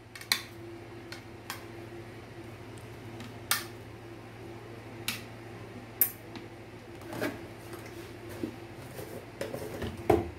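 A spoon clinking against a bowl now and then as chopped raw vegetables are mixed: scattered sharp clinks every second or so, over a steady low hum.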